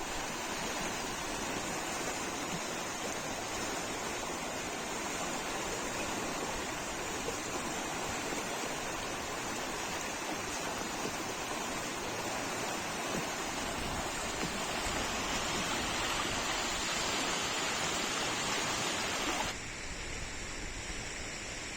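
Swollen river water rushing steadily, running high after rains. Near the end the rush suddenly becomes quieter and duller.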